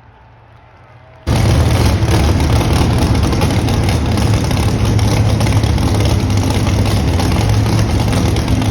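Pro Modified four-wheel-drive pulling truck's engine at full throttle on a pull. It cuts in suddenly about a second in and stays very loud and steady, with a strong deep low end.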